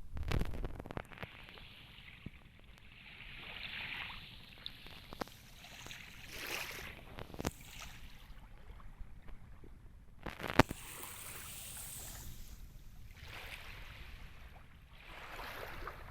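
Shallow sea water washing and sloshing in soft swells every couple of seconds, with a few sharp clicks, the loudest about ten seconds in.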